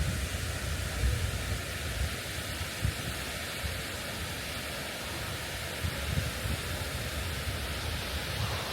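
Wind buffeting the microphone, uneven low rumbling gusts over a steady rushing hiss.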